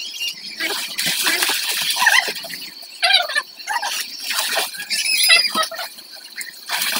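Water splashing in a swimming pool as children play, with short high-pitched shouts and squeals.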